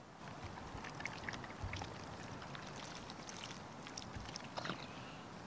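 A campfire crackling in scattered small clicks over a steady hiss, with soft handling of sliced morel mushrooms on a plastic chopping board.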